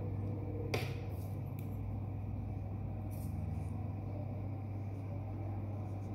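A steady low hum, with a few brief faint scratches of a reed calligraphy pen (qalam) moving on paper as it writes nastaliq script.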